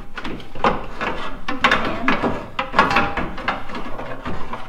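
Radiator being worked up and out of a truck's engine bay by hand: an irregular run of knocks, clunks and scraping as it rubs and bumps against the surrounding parts.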